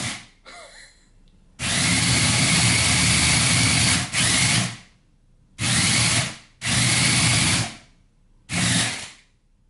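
WowWee CHIP robot dog's wheel drive motors whirring with a steady whine as it rolls fast across a hardwood floor. One long run of about three seconds, then three shorter dashes that start and stop abruptly.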